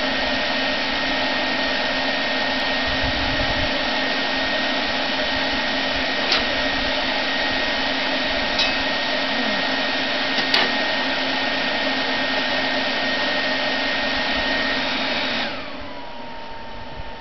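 Electric air blower feeding a backyard furnace that is melting aluminum, running steadily with a high whine. About fifteen seconds in it is switched off, and its whine falls as it spins down. A few light clicks along the way.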